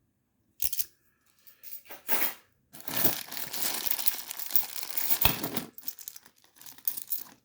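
Sealed plastic bank bag of 10p coins being handled, with a dense rustle of plastic from about three seconds in that lasts nearly three seconds. Scattered sharp clicks come before and after it.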